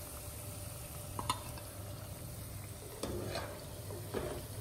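Boiled potato cubes frying in hot oil in a pan, a steady sizzle, with a few light clicks as a slotted metal spoon lifts the pieces out.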